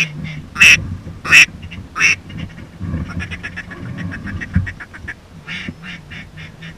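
Duck call blown by a hunter: three loud quacks in the first couple of seconds, then a long run of quicker, quieter short notes, calling to passing ducks.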